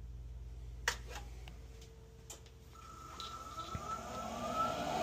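Power switch on a Burnham Alpine condensing boiler clicked over for a restart after a soft lockout. A low hum stops, then the boiler's combustion blower starts spinning up with a rising whine that grows louder near the end.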